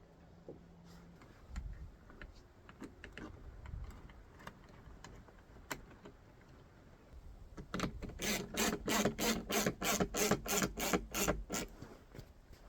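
Ratchet wrench clicking rapidly, about five clicks a second, for around four seconds starting a little past halfway. Before that there are scattered light clicks and knocks of small parts being handled.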